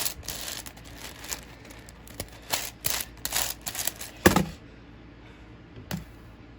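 Plastic Rubik's cube layers being turned fast by hand, irregular clacking clicks in quick runs, ending in a louder knock about four seconds in, as if the cube is set down. Quiet after that apart from one small tick.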